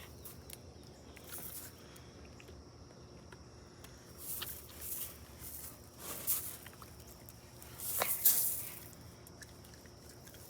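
A goo-filled squishy toy being squeezed and stretched by hand, giving several short, soft hissing squelches, the loudest about eight seconds in.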